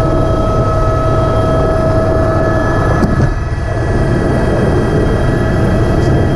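Cabin noise of an AS350 A-Star single-turbine helicopter flying low over a helipad: a steady, loud rumble of turbine and rotor with constant high whining tones over it. A brief click comes near the middle.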